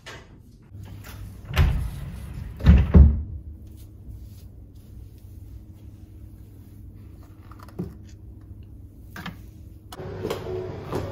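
A few dull, knocking thumps, the kind made by a cupboard or wardrobe door, with one about one and a half seconds in and a louder double one a second later, over a low steady hum. Near the end the sound changes to a busier background with faint steady tones.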